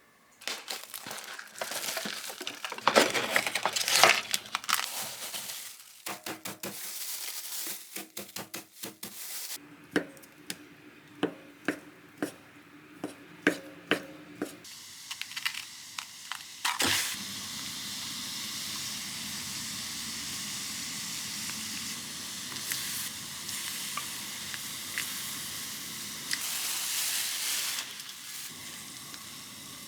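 Kitchen cooking sounds: rustling and handling with a run of sharp taps and clicks of utensils, then from about halfway through a steady sizzle of food cooking in a hot pan.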